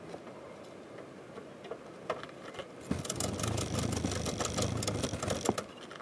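Ratchet strap being cranked tight over a kayak: a fast run of ratchet clicks starts about three seconds in and lasts about two and a half seconds, after a few scattered clicks.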